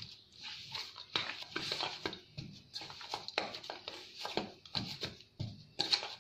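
Semolina (suji) and curd dough being kneaded by hand in a stainless steel bowl: irregular soft knocks and rubbing as the dough is pressed and pushed against the metal.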